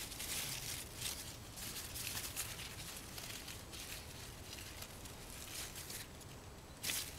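Raspberry bush leaves rustling in irregular bursts as a hand reaches in among them to pick berries, with a sharper rustle near the end.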